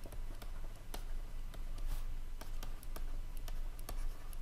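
Stylus tapping and scratching on a tablet screen while writing by hand: a string of small irregular clicks over a steady low hum.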